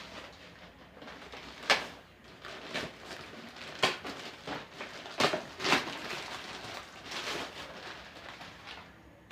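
Plastic wrapping of a new bicycle seat being crinkled and pulled open by hand: irregular rustling with several sharper crackles and snaps.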